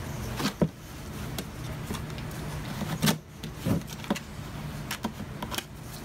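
Puppies scuffling on a hollow plastic duck decoy: scattered knocks and scrapes, the sharpest about half a second in, a cluster around three to four seconds in, over a steady low hum.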